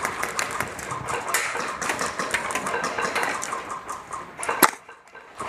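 Scattered sharp cracks of airsoft gas blowback rifle fire, with one loud crack about four and a half seconds in, after which the sound drops away.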